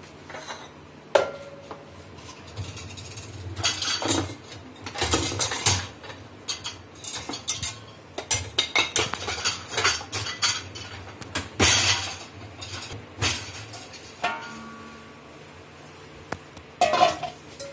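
Stainless-steel pots, bowls and utensils clattering and clinking over and over as they are handled and set down on a kitchen counter, with one metal clink ringing on briefly near the end.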